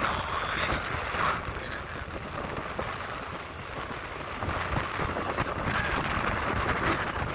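Wind buffeting the microphone held out of a moving passenger train's window, over the steady running noise of the train.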